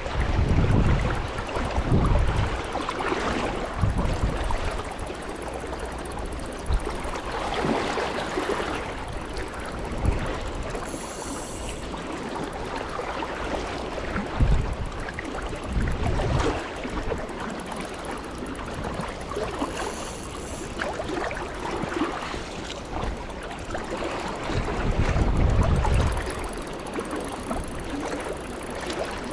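Creek water rushing steadily, with a few louder low bumps scattered through.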